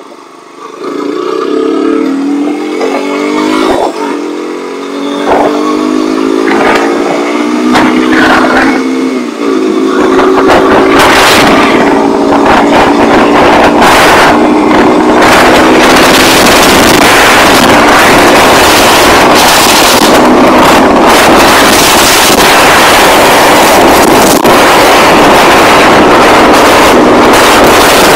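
KTM RC single-cylinder motorcycle engine accelerating through the gears, its pitch climbing and dropping back with each shift. After about ten seconds, heavy wind rush on the microphone at speed covers the engine.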